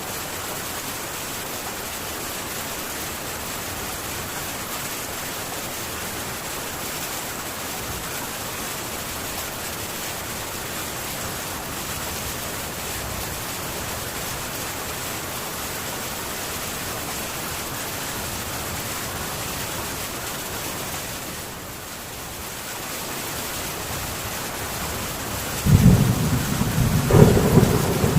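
Rain falling steadily on a metal tin roof, easing slightly for a moment about 22 seconds in. Near the end, a loud low rumble of thunder breaks in.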